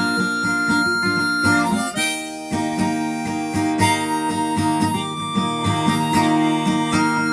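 Instrumental break on acoustic guitar with harmonica: fingerpicked guitar under long held harmonica notes, no singing.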